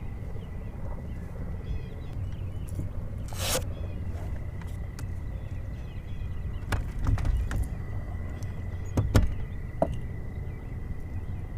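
Steady low rumble from a fishing boat on the water, under a thin steady whine. A short whoosh comes about three and a half seconds in, and a few sharp clicks and knocks follow later.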